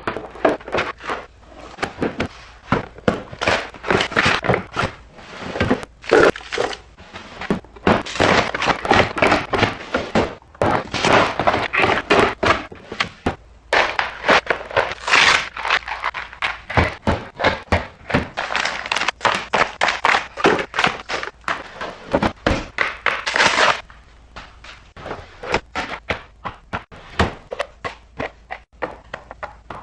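Dense run of clacks, thunks and rustles as food packages and containers are handled and set down during a kitchen and fridge restock. The sound eases to lighter, sparser taps about three-quarters of the way through.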